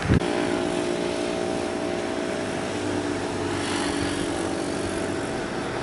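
Large bus engine running steadily under load, a droning hum with a short knock at the very start.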